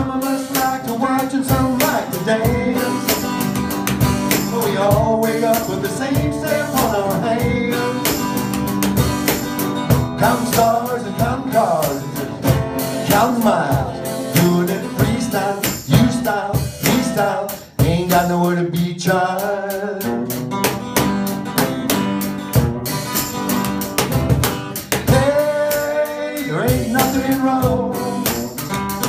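Live acoustic guitar strumming a steady country-pop groove, with a male voice singing over it.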